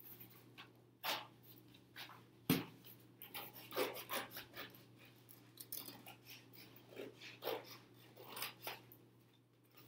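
Scissors cutting through thin cereal-box cardboard: a string of irregular crunching snips, the sharpest click about two and a half seconds in.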